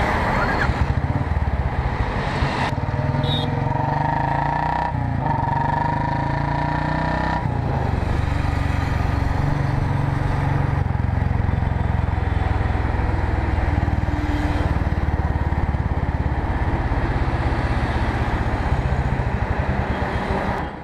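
Royal Enfield Bullet 350's single-cylinder engine running steadily as the motorcycle rides along in highway traffic.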